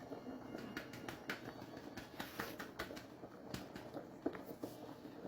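Irregular light clicks and taps of kitchen cookware at a pan of sauce on the stove, over a faint steady low background.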